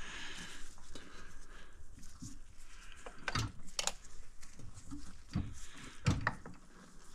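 Scattered knocks and clicks of metal parts and tools being handled while a motorcycle engine is reassembled, with a few sharper clicks partway through.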